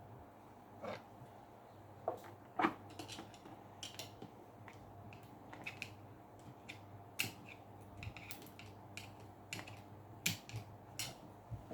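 Hands handling plastic desk-fan parts and a zip tie: scattered light clicks and rattles over a faint steady hum.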